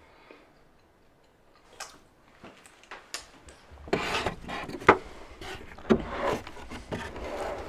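Wooden boards and door of a homebuilt plank smoker being handled and opened: wood rubbing and scraping, with a few sharp knocks in the second half.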